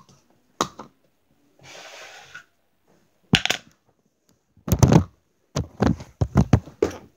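Handling noise of a phone camera being picked up and moved: a knock, a short rustle, then a run of loud, deep thumps and knocks against the microphone in the second half.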